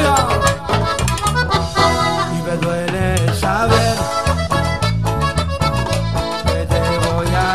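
Live cumbia band playing an instrumental passage, the accordion carrying the melody over a steady bass line and timbales percussion.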